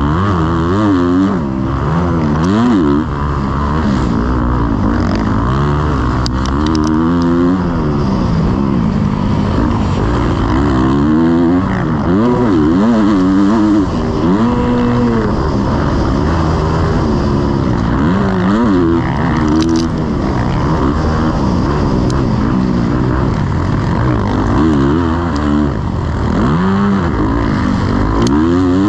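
Motocross bike engine running hard, its pitch rising and dropping back again and again as it accelerates and comes off the throttle.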